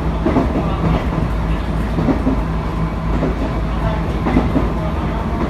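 JR 719 series electric train running at speed, with a steady low hum and the wheels knocking now and then over the rails.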